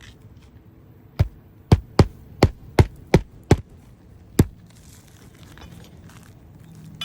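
Eight sharp knocks in quick, uneven succession, from about a second in to about four and a half seconds in, each with a heavy thud.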